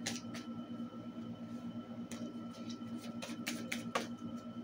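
A deck of tarot cards being shuffled by hand, with several sharp clicks of the cards, the loudest about four seconds in, over a steady background hum.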